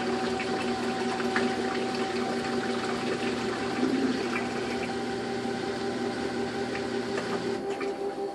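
Top-loading washing machine's stainless drum spinning fast in the spin cycle of its jeans programme: a steady motor whine of several tones over a rush of draining water. About seven and a half seconds in, the low rumble drops away.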